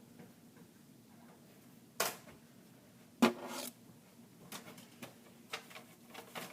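Two sharp knocks about a second apart, the second the loudest with a short ring, then a few lighter clicks and taps.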